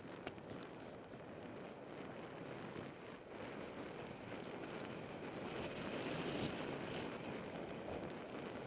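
Mountain bike ride heard from a bike-mounted or helmet camera: wind rushing over the microphone and tyres rolling on a dirt trail, a steady rush that grows louder past the middle. A sharp click sounds just after the start.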